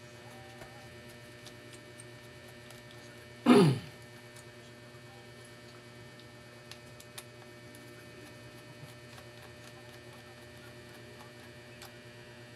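Steady electrical mains hum with a few faint clicks. About three and a half seconds in, a short loud vocal sound that falls in pitch.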